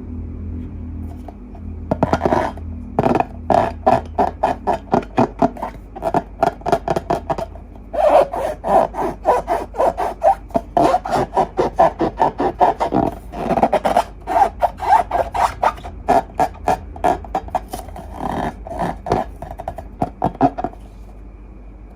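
Rubbing and squeezing of balloons and slime: a fast run of short, squeaky rasping strokes, several a second. It starts about two seconds in and stops near the end.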